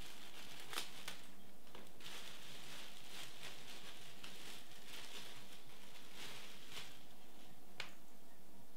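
Clear plastic bags and wrapping rustling and crinkling as clothing is pulled out and unwrapped by hand, with two sharper crackles, one about a second in and one near the end.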